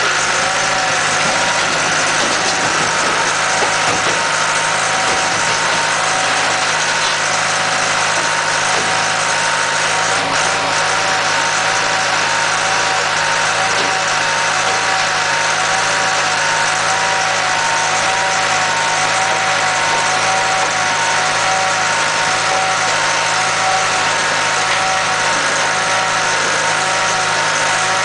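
Horizontal mobile scrap-metal baler running steadily while baling scrap steel. Its power unit and hydraulics give a constant machine drone with a wavering whine.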